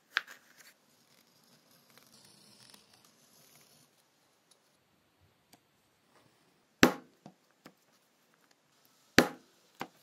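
A mallet strikes a multi-prong leather stitching chisel, punching stitching holes through a leather strip on a rubber pad. There is a sharp knock at the start and some light handling rustle, then two hard blows about two seconds apart, each followed by a couple of lighter taps.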